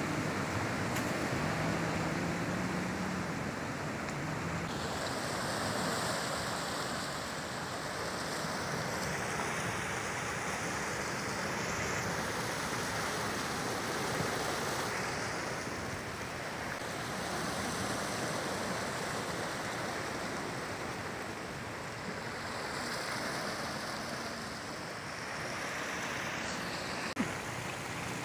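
Sea surf washing over a rocky shore: a steady rushing that swells and eases as the waves come in. A faint low hum sits under it for the first few seconds, and there is one sharp click near the end.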